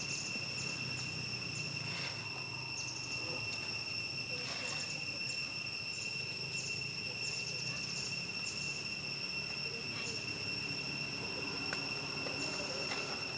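Insects keeping up a steady high-pitched drone, with a short chirp repeating about every half second to a second.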